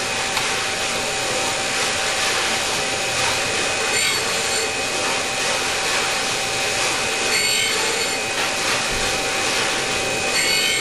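Valve refacing machine's grinding wheel running with a steady whine while a Fiat 1200 valve's stem end is ground square against the side of the wheel, a stem top cupped by the rocker arm. Short rasps of metal on the stone come about four, seven and a half and ten and a half seconds in.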